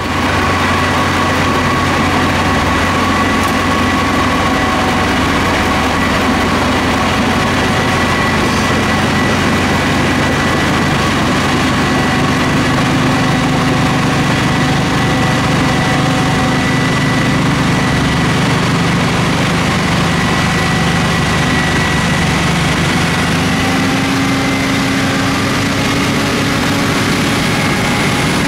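Subway snow-thrower car's engine and front rotary snow blower running steadily as it clears snow from the tracks: a heavy engine drone with a steady whine on top, over a constant rush of thrown snow.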